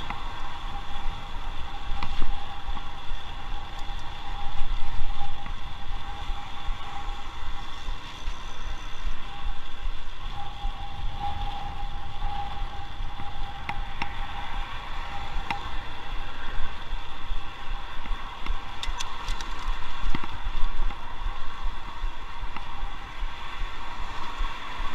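Bicycle riding on an asphalt city road: wind rumbling on the microphone over a steady hum of tyres and road noise, with a few small clicks and rattles from the bike.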